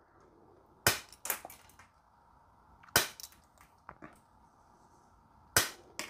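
Multitool plier-head wire cutters snipping through steel coat-hanger wire: three sharp snaps, roughly two and a half seconds apart, with lighter clicks between. The cutters go through the hard wire cleanly and take no damage.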